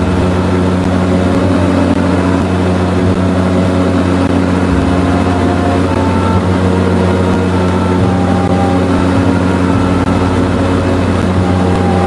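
The de Havilland Canada DHC-6 Twin Otter's two turboprop engines running steadily, heard from inside the cabin: a loud, even drone with a few held low tones.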